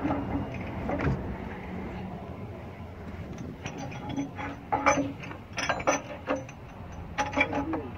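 Scattered metal clicks and knocks of tools and parts being handled at a Cummins ISX's opened timing gear train, starting about halfway through, over a steady low hum.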